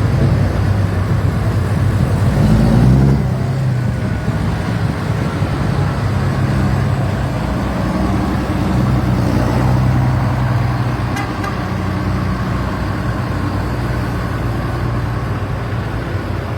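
Diesel tractor engine running at low revs while crawling in slow traffic, its revs rising briefly about two to three seconds in before settling back to a steady run.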